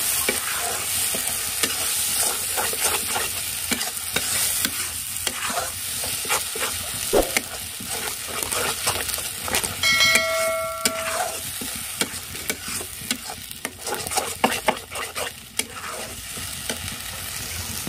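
Metal spatula scraping and stirring spice masala frying in oil in a cast-iron kadai, in many short strokes over a steady sizzle.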